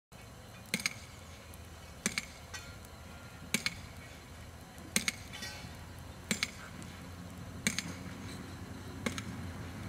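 Sledgehammer blows driving a big-top tent stake into the ground: seven sharp, ringing strikes at a steady pace, about one every second and a half.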